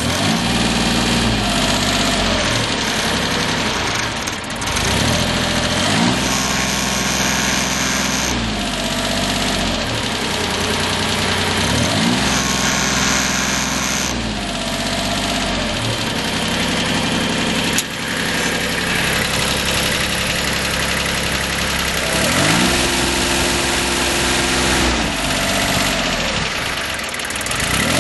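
Kumiai MT1601 tractor's diesel engine running just after starting, revved up and held for a few seconds, then dropped back to idle, several times over.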